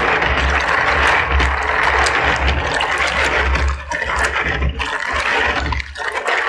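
Tiger nuts being washed by hand in a bowl of water: water sloshing with many quick clicks of the hard little tubers knocking together, easing off near the end.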